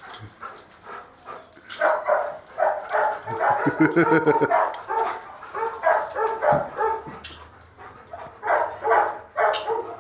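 Rottweiler at play, giving rapid runs of short pitched yips and barks, several a second, mostly between about two and seven seconds in and again near the end.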